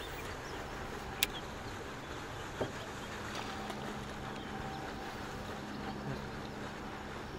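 Steady open-air noise aboard a fishing boat on the water. A faint steady hum comes in about halfway through, and there is a single sharp click a little over a second in.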